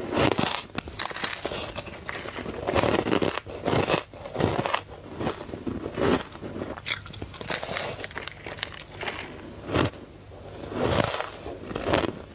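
Close-miked bites into soft-crunch ice: a string of crisp crunches and crackles, a fresh bite about every second.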